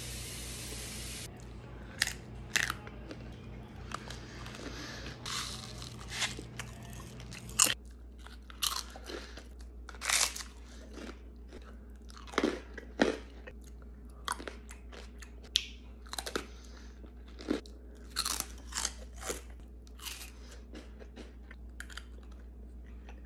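Close-up biting, crunching and chewing of a string of foods such as sugar cubes, pretzels, veggie straws and wafer, with sharp crunches every second or two between quieter chewing. A steady hiss runs through the first second or so.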